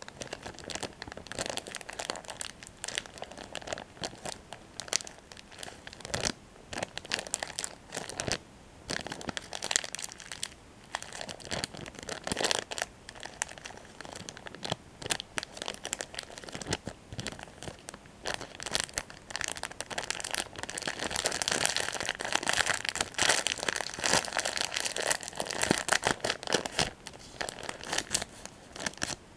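A Kit Kat plastic wrapper crinkled and crumpled between the fingers, in quick irregular crackles that grow busier and louder about two-thirds of the way in.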